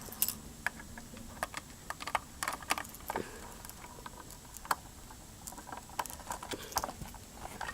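Irregular small clicks and taps of a screwdriver and plastic parts being handled while a screw is worked out of a metal detector's plastic casing.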